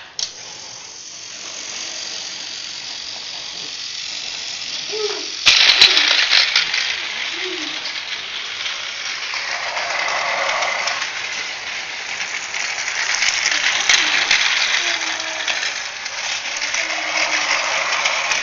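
Battery-powered toy train running on plastic track: its small motor and gears whir and the wheels clatter in a dense rattle, which jumps much louder with a click about five seconds in.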